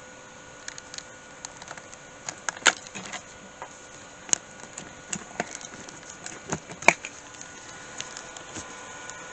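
A steady low hum from a newly powered PC's spinning fan, with scattered sharp clicks and taps over it. The loudest taps come about two and a half and seven seconds in.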